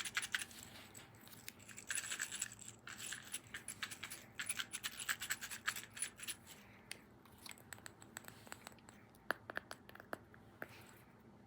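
Rapid clicking and clattering of small hard objects, in dense runs for the first six seconds or so, then thinning to scattered single clicks.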